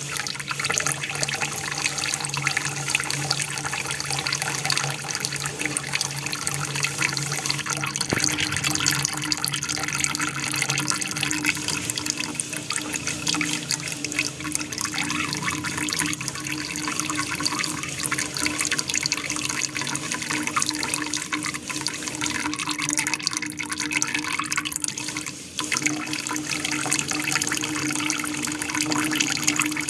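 Water from an aquarium waterfall running and splashing steadily, with a steady low hum underneath.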